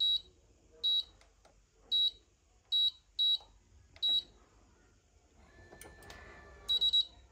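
Electronic in-room safe keypad beeping as a code is punched in: short high beeps, one per key press, at uneven gaps of about half a second to a second, six in all. Then comes a quicker pair of beeps near the end.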